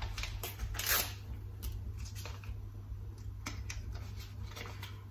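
Light kitchen handling noise: a short rustle about a second in, then a few faint clicks of utensils or packaging, over a low steady hum.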